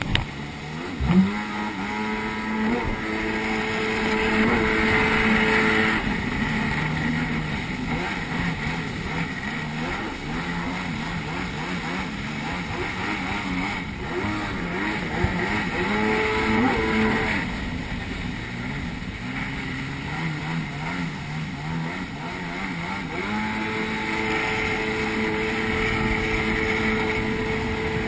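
Stand-up jet ski's engine running at speed, its note rising and falling several times as the throttle changes, over the rush of water spray off the hull. A sharp thump about a second in.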